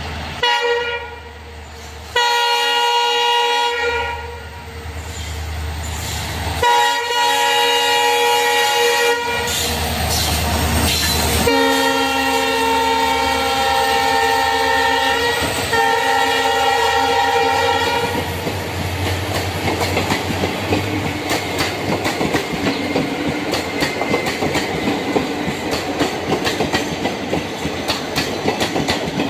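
Train horn sounding a series of long, multi-toned blasts, then the fast clickety-clack of the train's wheels over the rail joints as it runs past.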